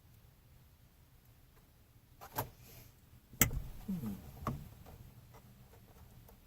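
A few sharp clicks and knocks of something being handled, the loudest about three and a half seconds in.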